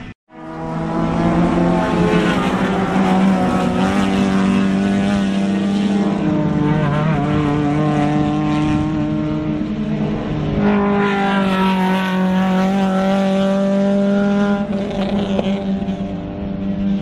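Racing car engines running hard at high revs, held fairly steady, with the pitch shifting about eleven seconds in. The sound cuts out for a moment just after the start.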